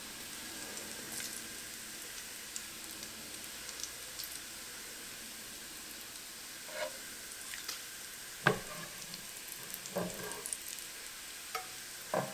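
Bacon sizzling in its rendered fat in a frying pan while a metal spoon scoops the fat out, with a few sharp clinks of the spoon against the cookware in the second half.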